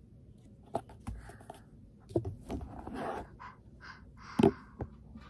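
A handful of knocks, bumps and rubbing from a toddler handling the phone that is recording, its microphone picking up his grip, with the loudest knock about four and a half seconds in.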